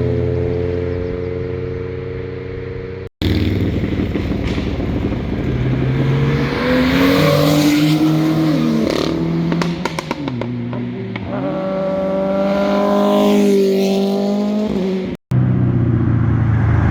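Sports-car exhausts revving and accelerating past in a row of short clips, each ending in a sudden cut. Engine pitch rises and falls, with a string of sharp cracks about ten seconds in and a strong rising rev soon after.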